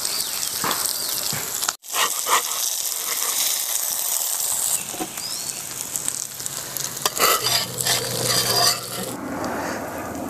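Rohu fish pieces sizzling in hot oil, fried through and being lifted out, with scattered clicks and scrapes of a metal spatula against the pan.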